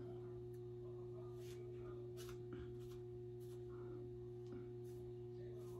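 Quiet room with a faint steady hum. A few faint soft rustles come from synthetic wig fibres being worked by hand into a new part.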